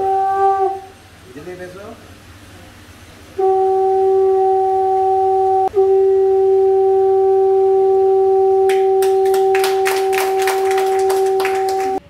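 Conch shell (shankh) blown in long, steady blasts as a Hindu ritual signal. A blast ends shortly after the start. After a pause of about two and a half seconds another begins, breaks off for a moment, and then holds for about six seconds. In its last few seconds a quick run of sharp strikes sounds along with it.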